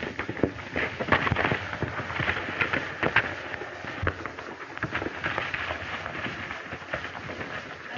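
A horse's hoofbeats on a dirt trail, an irregular clatter of sharp knocks.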